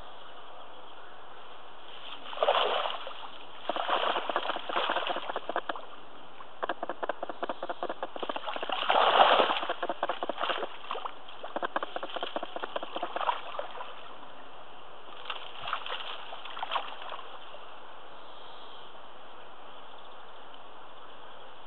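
Spawning carp splashing and thrashing in the reedy shallows, in irregular bursts that are loudest about nine seconds in and die away after about seventeen seconds.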